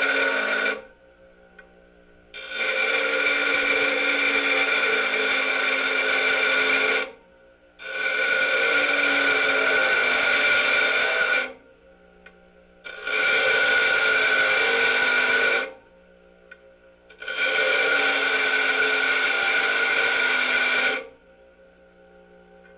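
Bench grinder wheel grinding the end of a metal rod held on the work rest, in repeated passes of three to four seconds each. Between the passes only the grinder's motor is heard, humming steadily as the wheel spins free.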